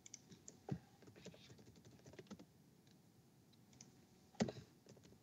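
Faint computer keyboard typing and clicks: a scattered run of keystrokes over the first couple of seconds, then two louder clicks, one just under a second in and one near the end.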